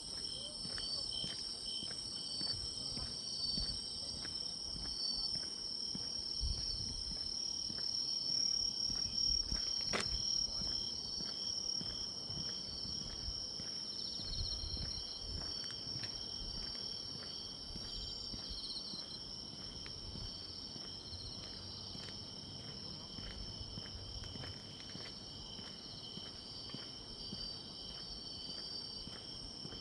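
Autumn grass insects (crickets) singing in a steady, high-pitched chorus, with soft regular footsteps beneath and a single sharp click about ten seconds in.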